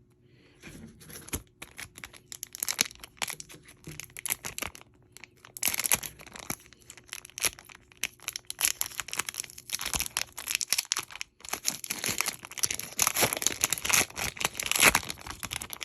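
A trading-card pack's wrapper being torn open and crinkled by hand: a long run of dense crackling and tearing, sparse at first and thickest in two stretches, one about six seconds in and one from about twelve seconds on.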